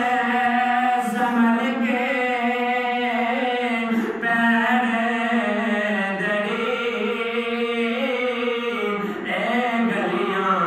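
A man's solo voice reciting an Urdu naat (devotional poem) unaccompanied, singing long held notes that bend and ornament up and down, with short breaths between phrases.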